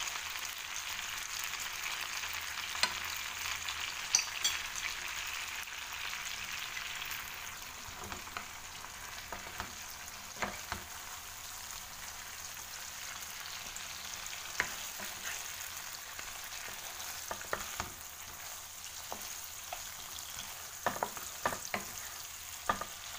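Prawns in buttery tomato sauce sizzling in a wok as a wooden spatula stirs them, with scattered light clicks and knocks of the spatula against the pan. The sizzle is louder for the first several seconds, then settles to a softer hiss.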